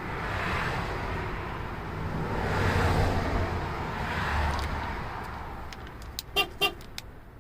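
Two short pitched beeps from the 2012 Range Rover Sport, a quarter second apart near the end, confirming an unlock-button press while a new smart key is being learned. Before them a broad rushing noise rises and fades.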